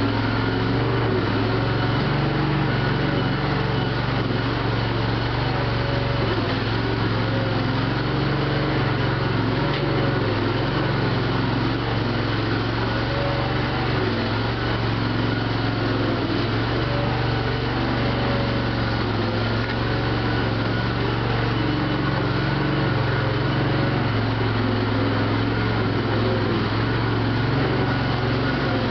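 Farm machinery engine running steadily at an even speed, with a constant low hum that does not rise or fall.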